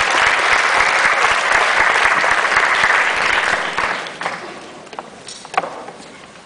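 Audience applauding, a loud, dense clapping that dies away about four seconds in. A few scattered claps and knocks follow.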